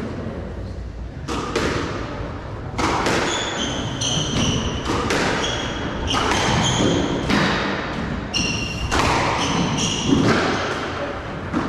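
Squash rally: the ball struck by rackets and slapping against the walls, with sharp thuds at irregular intervals. From a few seconds in, rubber shoe soles squeak in short high chirps on the wooden court floor as the players change direction.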